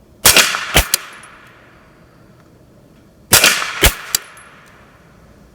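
Two suppressed 9mm shots from a PSA AKV carbine with a SilencerCo Octane 45 HD suppressor, about three seconds apart. Each shot is a sharp report with a short ringing tail, followed about half a second later by a second sharp crack and a faint click.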